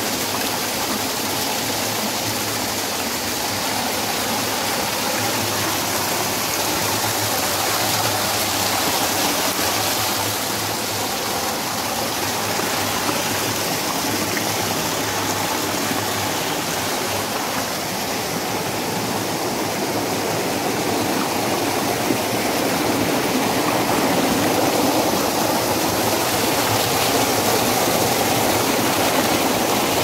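Mountain stream water rushing and splashing over boulders in small cascades, a steady close-up rush of water.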